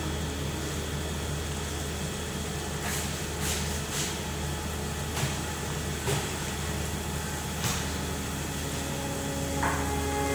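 Steady low hum and hiss from a pot heating on a gas stove burner, with a few faint crackles from the pot. Background music comes in near the end.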